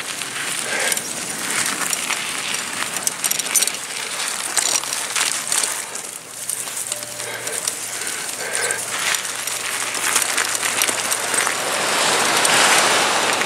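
Gravel crunching in irregular short crunches as someone moves along a coastal path, over a steady hiss of wind and ocean surf. The surf hiss swells near the end as the breaking waves come into view.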